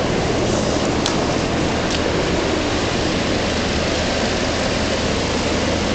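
Steady low machinery hum with an even noise over it. Two faint clicks come about one and two seconds in.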